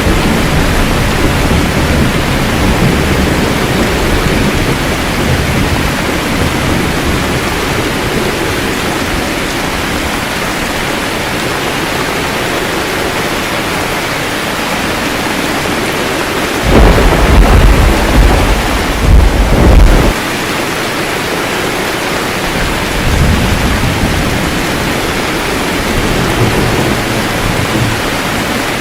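Steady rain with rolling thunder. A loud, deep thunder rumble breaks in a little past the middle and lasts about three seconds, with softer rumbles near the start and near the end.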